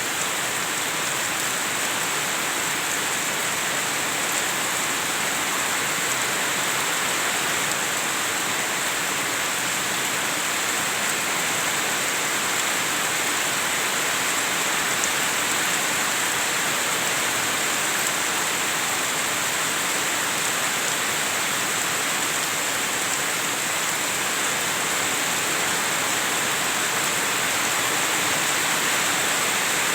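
Heavy rain falling steadily, a dense, even hiss of rain on surfaces with no letup.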